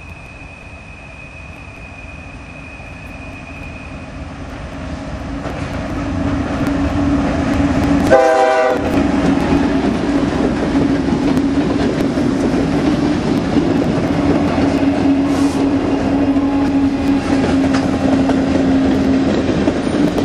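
Norfolk Southern freight train led by GE diesel locomotives approaching and passing close by: the engines grow steadily louder over the first several seconds, with a faint high steady squeal early on, then a short horn blast about eight seconds in as the lead units pass, followed by steady engine hum and wheel clatter as the locomotives and cars roll by.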